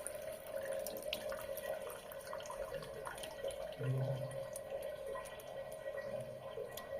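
Water tap running slowly in a thin stream, a steady splashing flow with many small dripping ticks; a short low hum sounds about four seconds in.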